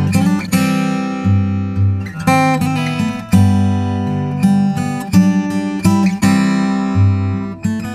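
Acoustic guitar playing a ballad's instrumental intro, plucked and strummed chords ringing out over low bass notes.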